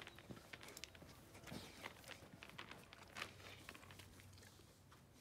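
Near silence with faint, scattered scuffs and crunches of steps on gravelly dirt.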